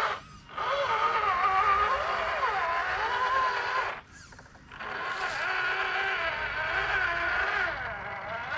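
Tamiya High-Lift F-350 RC scale crawler's electric motor and gearbox whining as it crawls, the pitch wavering up and down. The whine cuts out briefly twice, just after the start and about halfway through.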